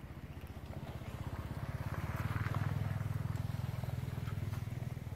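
A vehicle engine running nearby, a low pulsing drone that grows louder to a peak about halfway through and then eases off a little, as of a vehicle passing.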